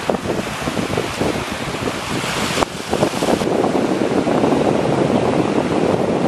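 Wind blowing on the microphone over the wash of surf against a rocky shore. About two and a half seconds in, the sound changes abruptly to a thicker, gustier wind noise.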